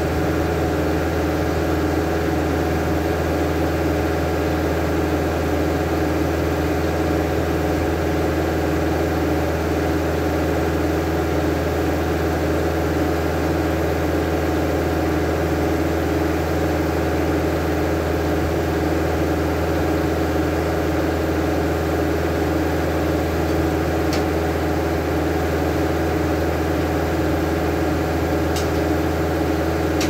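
Engine powering an antique Belsaw circle sawmill, running at a steady speed with an even hum. Two faint clicks come near the end.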